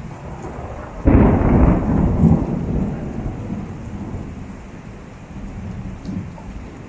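A clap of thunder breaks suddenly about a second in and rumbles on, fading over several seconds, over steady rain falling on pavement.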